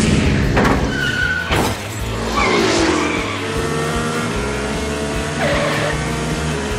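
Cartoon race-car sound effects: cars zooming by with falling-pitch engine sweeps and tyre squeals, and two sudden whooshes in the first two seconds, over steady background music.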